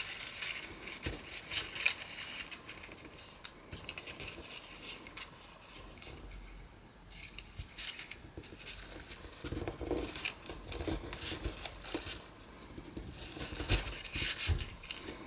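Cord being tied into a bow on a small cardstock box: paper and cord rustling and scraping under the hands, with scattered light clicks and taps, a little louder about ten seconds in and again near the end.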